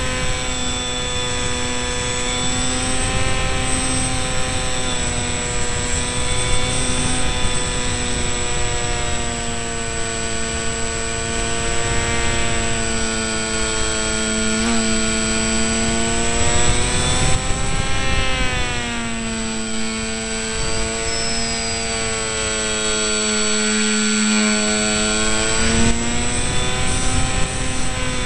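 Electric motor and propeller of an RC delta-wing model, heard from its onboard camera: a steady whine whose pitch dips and rises a few times as the throttle changes, over wind rushing on the microphone.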